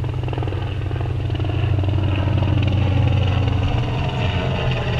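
Military aircraft flying over, a loud, steady low engine drone with a fast throb that holds through the whole pass.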